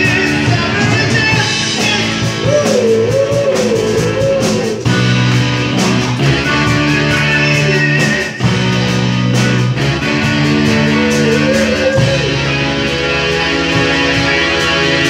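A live rock band playing, with electric guitars over a drum kit keeping a steady beat.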